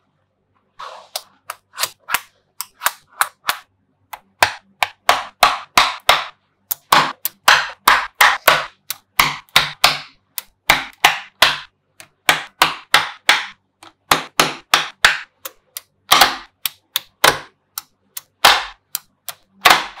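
Small neodymium magnetic balls snapping together with sharp metallic clicks as sheets of balls are stacked into a block. The clicks begin about a second in and keep coming, a few a second, some in quick pairs.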